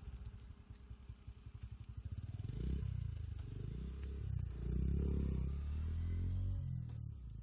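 Low engine rumble of a nearby vehicle running. It pulses evenly and rapidly at first, then swells and falls unevenly through the second half.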